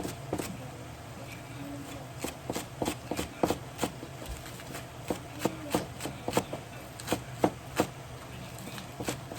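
Kitchen knife chopping on a cutting board: a run of sharp knocks about three a second, pausing briefly twice, over a steady low hum.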